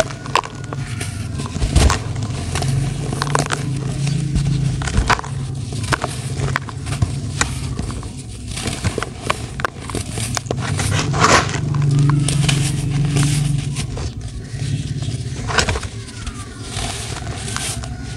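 Hands squeezing and crumbling dry, powdery clods in a plastic basin: gritty crunching and crackling as the lumps break, with powder sifting through the fingers and a few sharper cracks. A low steady hum runs underneath.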